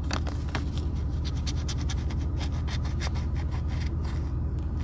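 A coin scraping the coating off an instant lottery scratch-off ticket: a quick run of short rasping strokes. A low, steady hum runs underneath.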